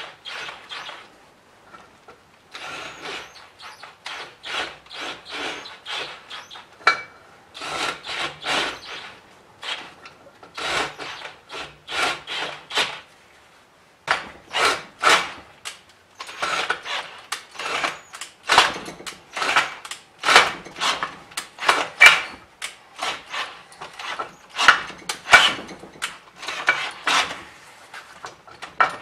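Cordless drill turning a 1-3/16-inch Silver & Deming bit slowly in an aluminium intake manifold, enlarging a hole: short cutting strokes several times a second, in runs broken by brief pauses, with one longer pause about halfway through.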